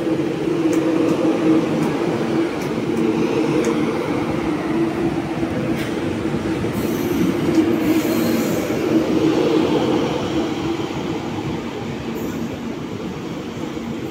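Electric commuter train passing close by: a steady hum from its running gear and motors, with scattered wheel clicks over the rails in the first half. Faint high-pitched wheel squeal comes in about halfway and again near the end.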